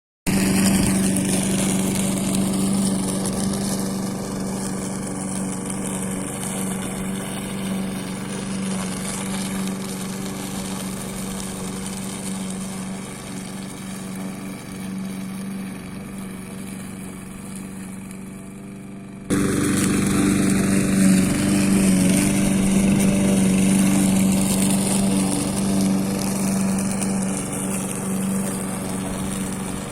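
DDE lawn mower running steadily as it mulches a thick carpet of wet fallen leaves, with a steady hum. The hum slowly fades, then is abruptly louder again about two-thirds of the way through.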